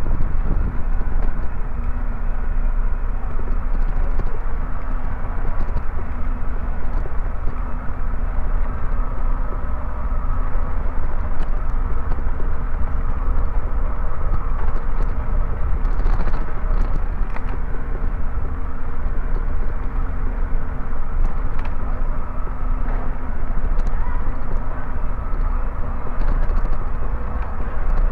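Bicycle ride noise over brick pavers: a steady rumble and rattle of tyres and bike on the bricks, with a deep low rumble underneath.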